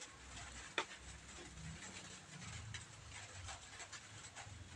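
Faint ticks and light rustling of handling as the twisted-pair wires of a LAN cable are untwisted and lined up by hand, with one sharper click about a second in.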